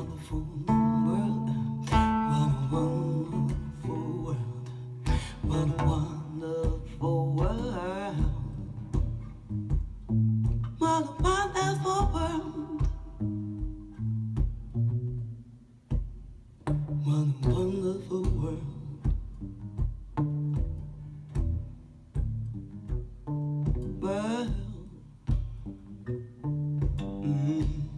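Recorded music played through a pair of Totem Sky bookshelf speakers driven by an EL84 push-pull tube amplifier: the closing bars of a song, with plucked guitar and bass and a singing voice at times.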